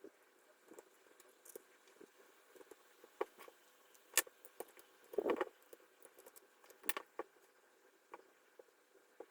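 Irregular light clicks and small rattles of hard plastic parts being handled, with a louder rustling knock about five seconds in.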